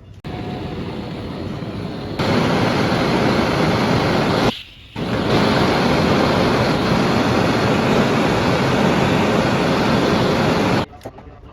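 Loud steady rushing hiss. It gets louder about two seconds in, breaks off for about half a second near the middle, then runs on until it stops suddenly near the end.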